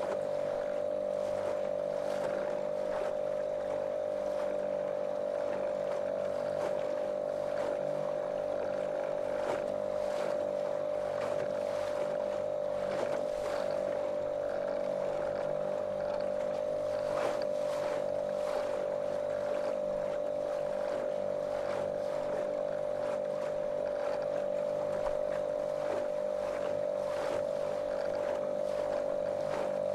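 Small motorboat's outboard motor running at a steady, monotonous pitch, with water splashing against the hull.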